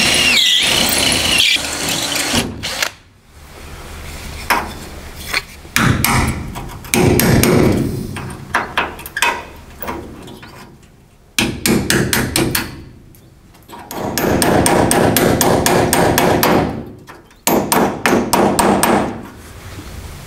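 Cordless drill boring out a seized, rusted hinge screw in a steel truck door. It runs in several loud bursts with quieter pauses between them, and rapid knocking runs through each burst. The motor's whine drops in pitch in the first second or so.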